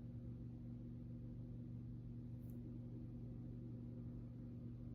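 A faint, steady low hum with no other events.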